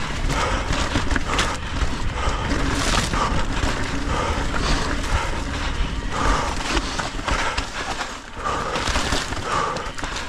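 Mountain bike riding down a rough trail: steady tyre and trail rumble with rattling from the bike and wind buffeting the microphone.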